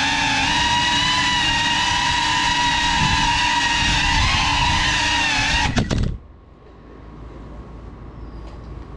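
GEPRC Cinelog 35 cinewhoop's motors and ducted propellers whining steadily, the pitch wavering slightly with throttle. About six seconds in, a few sharp knocks as the drone crashes, then the whine cuts off suddenly, leaving a faint low background.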